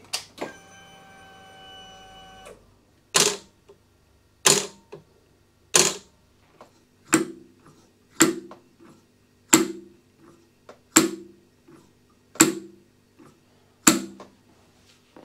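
Royal Enfield motorcycle's electric fuel pump priming: a click, then a steady whine for about two seconds that cuts off. After it comes a run of sharp clicks about every 1.3 seconds, several followed by a brief low hum.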